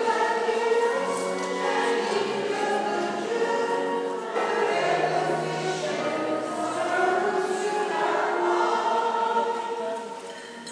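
Choir singing a hymn in long held notes, with a short break between phrases about four seconds in and the sound falling away near the end.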